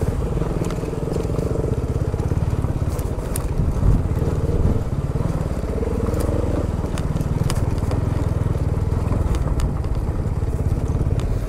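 Motorcycle engine running steadily under way, with a fast, even pulsing drone. Scattered sharp clicks and knocks sound over it.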